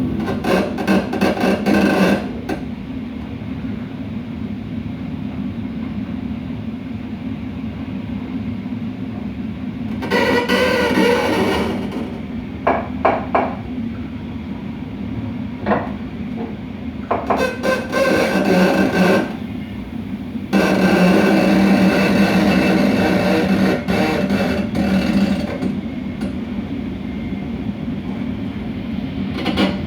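Railway coupler between two cars of a moving train: a steady low running hum underneath, with recurring stretches of harsh, grating noise from the coupling lasting two to five seconds each, and a few single sharp clicks in between.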